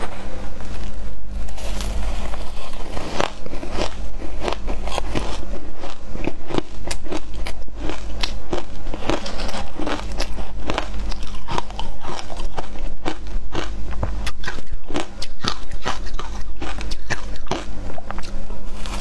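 Close-miked crunching of matcha-dusted ice as it is bitten and chewed: a dense run of sharp, irregular crunches, over a steady low hum.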